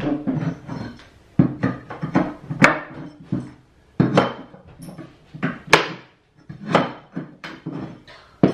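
A small steel pry bar knocking against old wooden floorboards in an irregular string of sharp knocks, as it is dug in around old floor nails whose heads are snapping off.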